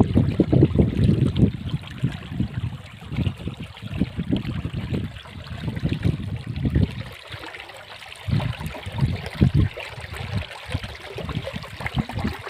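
River water flowing, rising and falling in uneven low surges, loudest in the first second or two.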